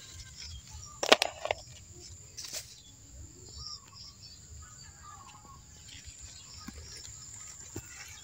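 A few sharp knocks about a second in as a small plastic bowl is set down on leaf litter and the phone is handled, then a weaker one shortly after. Behind them, faint bird chirps and a steady high-pitched tone.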